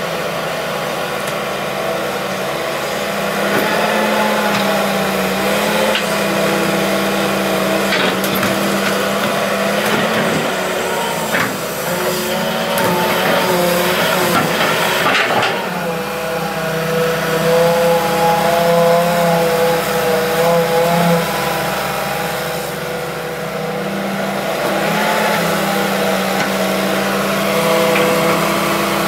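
Hitachi EX200-3 hydraulic excavator's diesel engine running steadily under load, its hum and hydraulic whine shifting in pitch as the arm and bucket work, with a few short knocks along the way.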